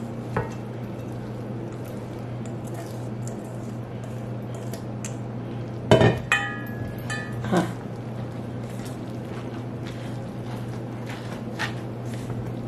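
Shredded apples scraped out of one stainless steel bowl and folded into batter in another with a silicone spatula: soft wet scraping and small clinks against the metal. About halfway through, a few sharp knocks set a stainless bowl ringing briefly, and one more knock follows a second and a half later, over a steady low hum.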